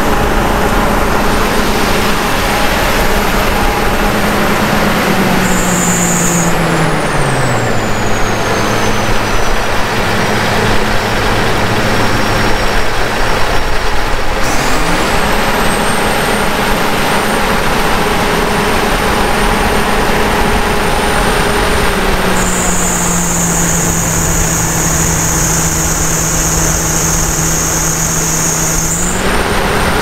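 John Deere combine harvester engine running with the bay open, its fan belt squealing high-pitched briefly about six seconds in and again for several seconds near the end, as the low hum of the engine and fan drops in pitch. The belt is slipping and the fan slows down, which the owner puts down to a worn crank pulley.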